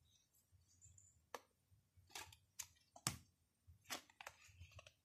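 Faint, scattered clicks and soft taps of tarot cards being handled and laid down, about half a dozen irregular snaps spread over a few seconds.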